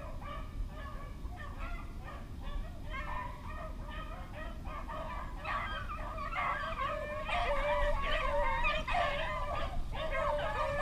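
A pack of rabbit-hunting beagles baying, many voices overlapping at once, getting louder from about halfway through.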